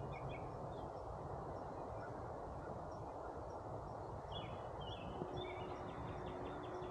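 Songbirds chirping in quick strings of short notes over a steady outdoor hiss. A honey bee buzzes close by as a steady low drone from about five seconds in.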